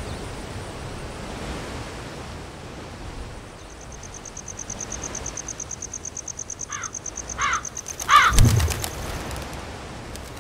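Field ambience: a steady rustling hiss, joined about a third of the way in by an insect trilling in fast, even pulses. Near two-thirds through a bird gives three short calls about a second apart, the last loudest, with a low thump and a quick flutter of wing flaps.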